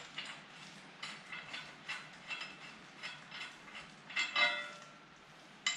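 Ratchet wrench clicking in short strokes on a nut, about three clicks a second, with a louder ringing metal clank a little after four seconds in.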